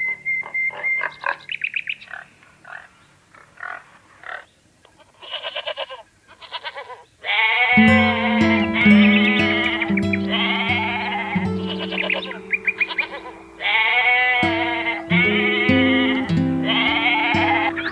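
Trains of rapid croak-like clicking pulses, then from about 7 s on sheep bleating again and again with a quavering voice, over background music with long held low notes.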